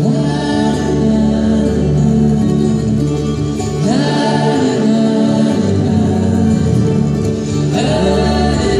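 Live acoustic string band playing, with acoustic guitars, mandolin and upright bass, and voices singing in harmony over them. New sung phrases come in about four seconds in and again near the end.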